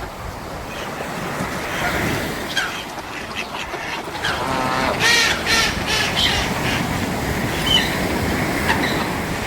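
Sea waves washing onto a beach with a steady rush, with birds calling again and again over the surf; the calls bunch up about five seconds in.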